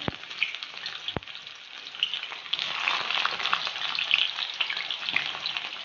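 Sliced onions sizzling and crackling in hot oil in an iron kadai, freshly added to the pan, with a couple of sharp pops in the first second or so.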